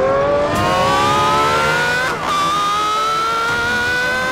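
Aston Martin Valkyrie's Cosworth-built naturally aspirated 6.5-litre V12 accelerating hard, its high-pitched note climbing steadily. About two seconds in, the pitch drops briefly at an upshift and then climbs again.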